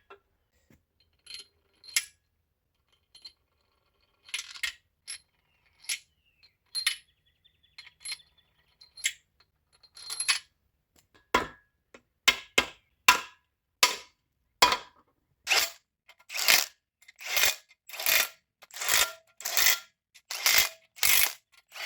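Metal striking metal: a few scattered clinks, then from about halfway a steady run of sharp, ringing metallic strikes, one or two a second, growing louder.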